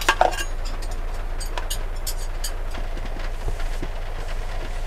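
Heavy rain drumming on a campervan's roof heard from inside: a steady low rumble with scattered sharp ticks of drops, and a couple of clicks near the start.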